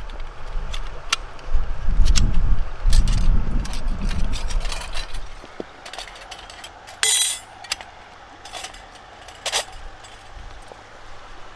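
Stainless-steel panels of a small folding wood stove, the Fire Trough Mini, clicking and clinking as they are handled and slotted together, with one louder metallic scrape just past halfway. Low rumble of handling at first.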